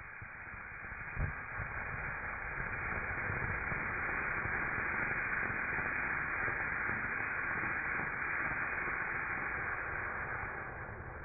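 Ground fountain firework spraying sparks: a steady hiss that builds over the first few seconds and fades near the end, with a low pop about a second in.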